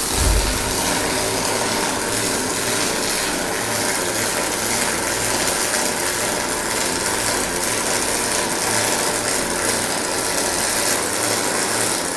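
Industrial robot cell starting up suddenly and running with a loud, steady, rough mechanical noise.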